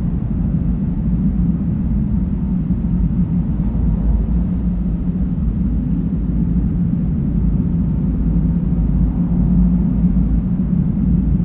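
Dark windy ambience loop: a steady, deep, wind-like rumble with a low drone underneath and little high hiss.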